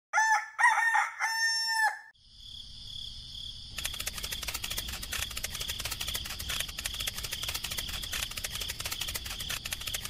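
A rooster crowing once, a cock-a-doodle-doo in three parts lasting about two seconds. After a short pause, a steady high-pitched buzz with rapid ticking starts and carries on.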